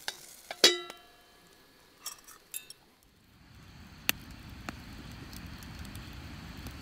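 A metal lid is set onto a pot with a loud ringing clank about half a second in, followed by a few lighter metal clinks. Then a wood fire burns with a low steady rumble and a couple of sharp crackling pops.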